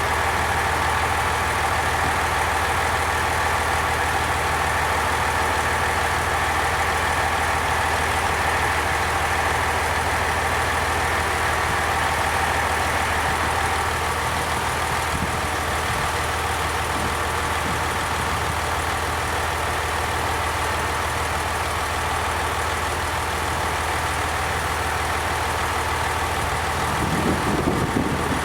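Diesel train engine idling steadily, with a brief low sound near the end.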